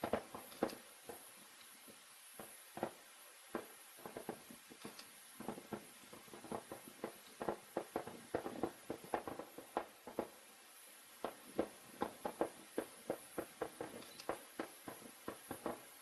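Aerial fireworks popping and crackling from a distance: an irregular run of sharp pops, several a second, thickest in the middle and toward the end.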